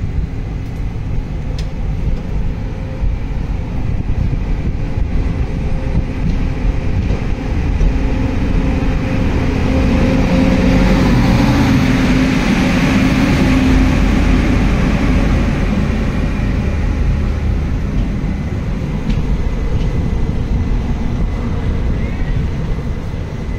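Train rumble heard from the open doorway of a moving coach, as an oncoming WAP-7 electric locomotive and its coaches pass on the next track. It swells to its loudest about halfway through as the locomotive goes by, then settles into the steady run of the passing coaches.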